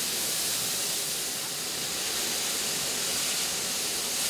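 Steady hiss of steam from the oil-fired 18 201 steam locomotive as heavy oil is sprayed into its firebox and the fire catches.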